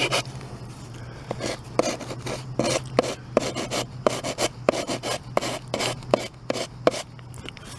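Hand sanding with medium-grit sandpaper wrapped on a wooden block, rubbing down dried wood putty on a particle board edge in short back-and-forth strokes, about three a second, after a softer first second.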